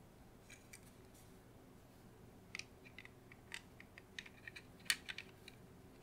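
Faint, irregular small plastic clicks and taps as a plastic shell piece of a Logitech MX Vertical mouse is pressed and snapped onto the mouse body by hand, the sharpest click coming about five seconds in.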